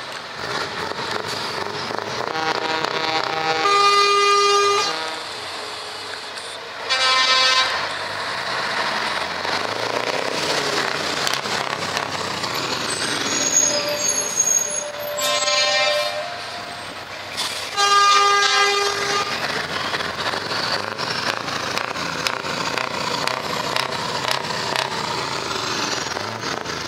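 Scania V8 truck with an open exhaust running as it pulls slowly past. Loud multi-tone truck air horn blasts sound four times, each a second or two long.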